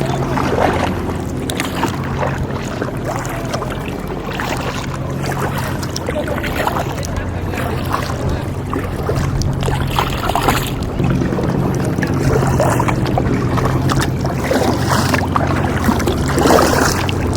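A boat engine running steadily with a low hum, over a haze of water and wind noise, with faint voices now and then.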